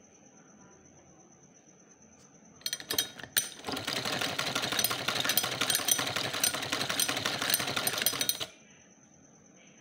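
Domestic sewing machine stitching a double-folded hem in cotton fabric: a few clicks about three seconds in, then a rapid clattering run of stitches for about five seconds that stops suddenly.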